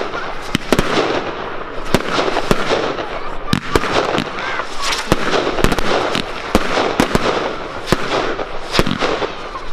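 Fireworks display: a rapid, irregular series of loud bangs from bursting shells, about two a second, over continuous crackling, with a faint whistle here and there.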